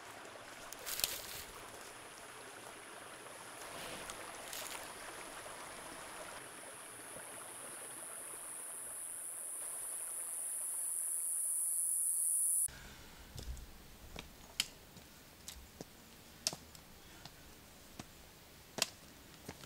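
A rushing, water-like haze with a high hiss that swells steadily louder, then cuts off abruptly about two-thirds of the way through. After that come irregular sharp footsteps on a stony path, one every second or so.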